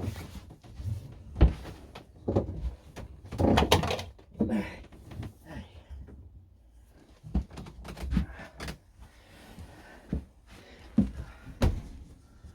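Irregular knocks, clunks and scrapes of hand work dismantling a boat's sea toilet and its fittings, busiest about three and a half seconds in.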